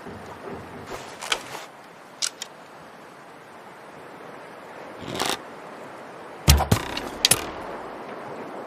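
Bow and arrow shooting: a handful of short, sharp snaps and a brief swish, the loudest a heavy thump about six and a half seconds in, followed by another sharp snap.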